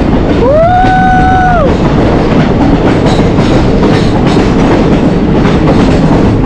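Passenger train running loud through a tunnel, its wheels clattering on the rails. About half a second in, a high pitched tone rises, holds for about a second and falls away. A shorter one follows near the end.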